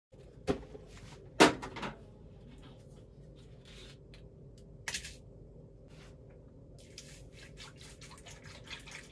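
Kitchen utensils knocking and clattering, the loudest knock just over a second in. From about seven seconds in, milk is poured from a carton into a stainless steel bowl, a running splash and trickle.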